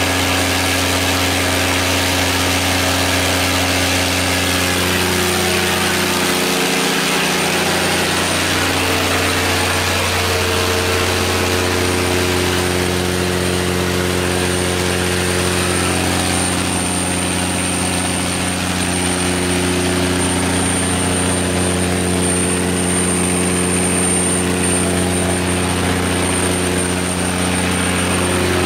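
Cummins QSX15-G9 15-litre inline-six diesel engine of a 500 kW generator set running steadily, with a thin high whine above the engine note.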